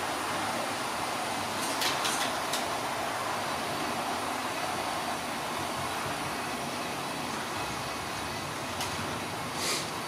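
Model trains running on the layout under automatic DCC control: a steady whir and rumble of motors and wheels on the track, with a few sharp clicks about two seconds in and again near the end, and a brief hiss just before the end.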